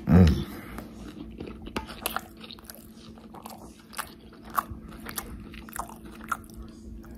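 Close-up chewing and lip smacking on a mouthful of burger: irregular wet clicks and smacks. A short, loud low sound comes right at the start.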